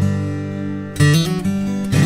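Background music of a strummed acoustic guitar, with a new strum and chord change about a second in.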